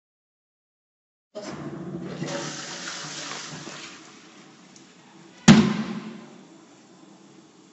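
Wall-hung toilet flushing: water starts rushing suddenly about a second and a half in and fades after a few seconds. Then comes a single sharp, loud bang, the loudest sound, dying away quickly.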